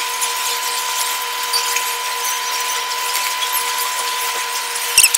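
Close-miked chewing and wet mouth sounds of a person eating hot-pot food, over a steady hiss with a faint hum. A few sharp clicks come near the end.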